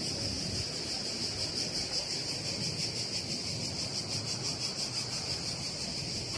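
Cicadas singing in the trees: a steady, rapidly pulsing high-pitched buzz, over a faint low outdoor rumble.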